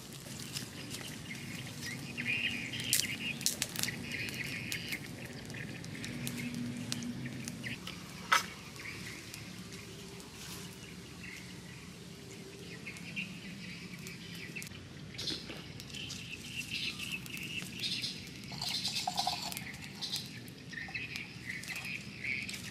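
Birds chirping over the crackle of a small wood fire, with scattered clicks and one sharp snap about a third of the way in.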